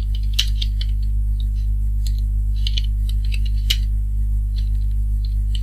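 Computer keyboard typing: irregular key clicks over a steady low electrical hum.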